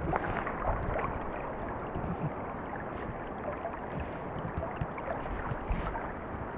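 River water lapping and splashing close to the microphone, with wind on the microphone: a steady wash of noise dotted with small irregular splashes.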